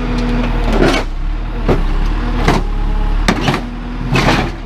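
Backhoe's diesel engine running under hydraulic load while its bucket crunches and grinds down on a sheet-metal washing machine, about five crunches in a row.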